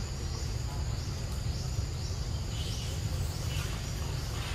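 Steady low rumble with insects trilling in a steady high band behind it.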